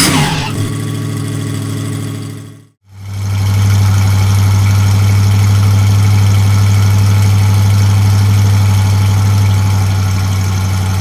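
Engine sound effect for a cartoon Jeep monster truck: a steady low engine drone fades out about two and a half seconds in, then a louder engine comes in and runs steadily.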